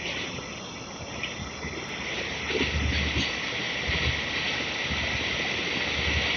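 Long Island Rail Road train rumbling low at the station, over a steady high hiss that slowly grows louder.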